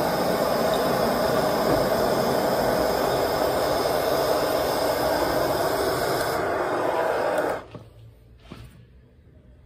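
Gas burner of a small crucible furnace running with a steady rushing roar, then cut off abruptly about three quarters of the way through as the burner is shut down. A couple of faint knocks follow.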